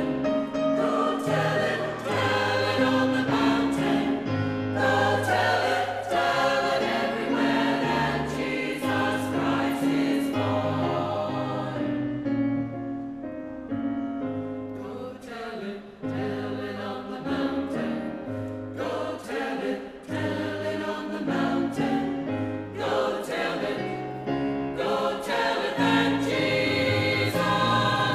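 A choir singing with instrumental accompaniment over sustained bass notes; the sound thins out briefly near the middle, then grows full again.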